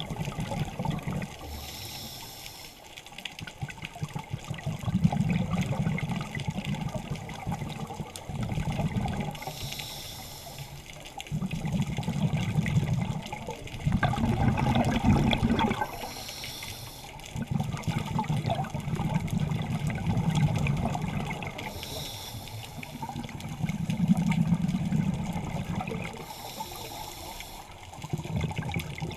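Scuba diver breathing through a regulator underwater: five short hissing inhales about every five to six seconds, each followed by a long bubbling, gurgling exhale.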